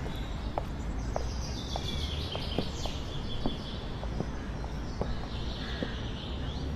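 Outdoor ambience of small birds chirping and singing over a steady low rumble, with a string of short clicks roughly every half second.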